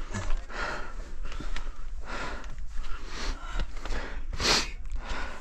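A person's heavy breathing while climbing steep rock, hard breaths about once a second, the loudest one near the end: out of breath from the climb.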